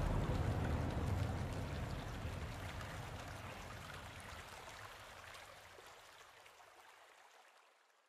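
Rushing, flowing water, a steady noisy wash that fades out gradually to silence.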